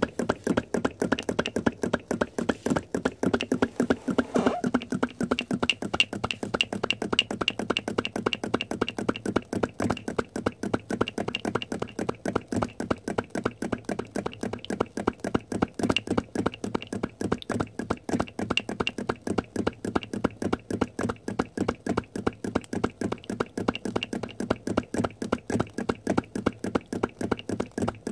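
Scratch-built flame licker (vacuum) engine running, its piston and valve giving a rapid, even clacking on every stroke as it sucks in the flame.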